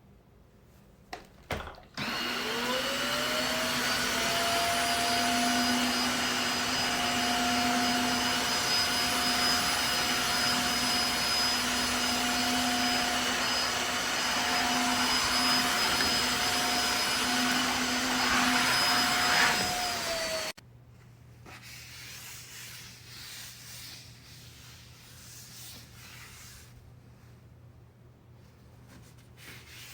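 Tineco iFLOOR 3 cordless wet-dry vacuum switched on after a couple of clicks. Its motor spins up with a rising whine, runs steadily with a high whine over the suction noise, and shuts off abruptly after about eighteen seconds.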